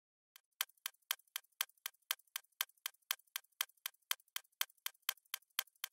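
Stopwatch ticking sound effect: about four crisp ticks a second, alternating louder and softer, with dead silence between them. The ticks start about a third of a second in.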